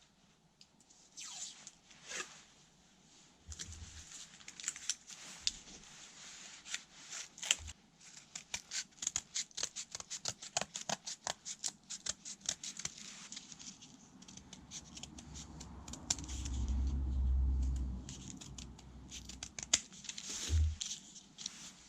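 Hand-tool work in a workshop: a long run of sharp clicks and snips, quickest in the middle, with a short low rumble near the end.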